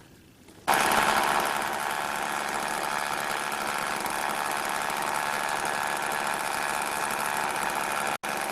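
Two-stroke chainsaw running steadily at high revs. It comes in suddenly under a second in and cuts out for an instant near the end.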